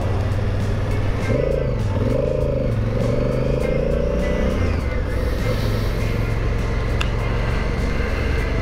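Honda Africa Twin motorcycle engine running at low town speed, with wind and wet-road noise.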